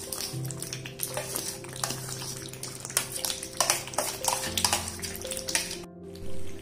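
Steel spoon scraping and clinking against a steel bowl as a thick nut paste is scraped out into a kadhai of thick masala, with irregular metal clicks and scrapes and a soft stir. It breaks off briefly near the end.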